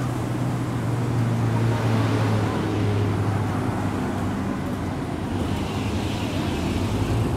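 Steady road traffic: a continuous low engine hum under a wash of street noise, with a hiss that swells briefly about six seconds in.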